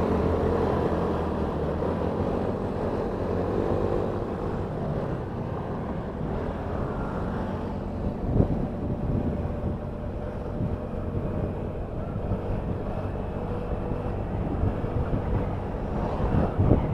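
Motorbike engine running on the move, recorded from the rider's helmet, with wind rushing over the microphone.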